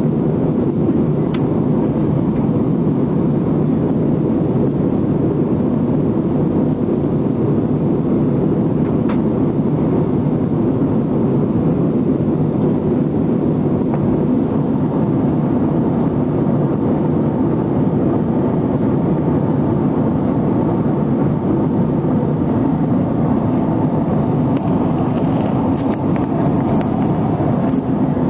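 Jet airliner cabin noise: the engines and rushing air heard from a passenger seat as one loud, steady, low noise during the take-off.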